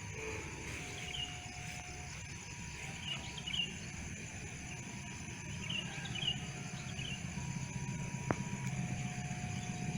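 Small birds chirping a few short times over a steady low rumble of distant engine noise, which grows slightly louder near the end.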